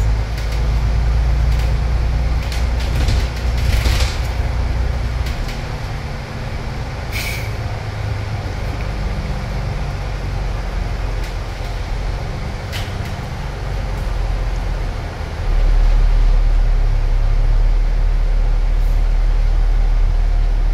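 Alexander Dennis Enviro500 double-decker bus's engine and drivetrain running while it drives, heard from inside the upper deck. A brief hiss, as from an air brake, comes about seven seconds in, and about three-quarters of the way through the engine note deepens and grows louder.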